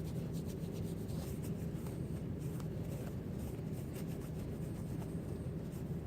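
Steady rubbing as the parts of a 5.56 bolt carrier group are wiped clean of carbon fouling by hand, with a few light clicks of metal.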